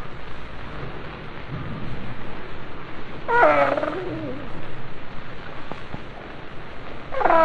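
Reconstructed Smilodon (saber-toothed cat) calls: a loud big-cat call falling in pitch about three seconds in, and another beginning near the end, over a steady rumbling background.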